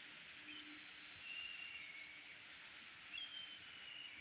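Faint steady rain falling on a pond and surrounding foliage, an even hiss. Over it, birds give several short, thin, high calls, including a longer string of calls about three seconds in.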